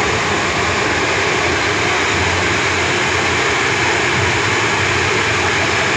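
Foam cannon's blower fan running, a loud, steady rush of air as it sprays foam.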